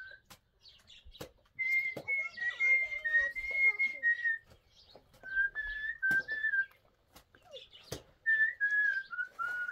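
A person whistling a tune in three short phrases of held, stepping notes, with a few sharp knocks in between.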